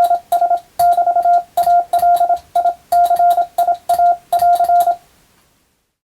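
Morse code sent by hand on a telegraph key: a steady beep tone keyed in short dots and longer dashes at a brisk sending speed, with a click as each element starts. The sending stops about five seconds in.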